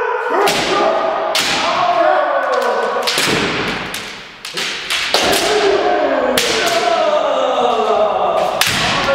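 Kendo sparring: several kendoka give long shouted kiai that slide down in pitch and overlap, cut by a string of sharp cracks from bamboo shinai striking armour and feet stamping on a wooden floor.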